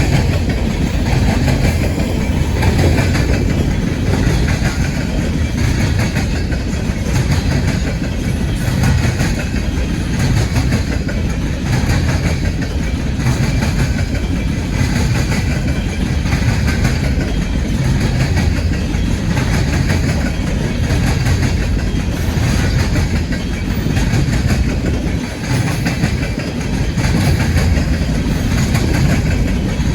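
Empty coal train's hopper cars rolling past, a steady loud rumble with the wheels clacking over the rails.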